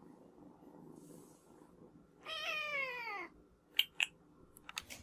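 A kitten meowing once: a single meow of about a second that falls in pitch, followed by a few short clicks near the end.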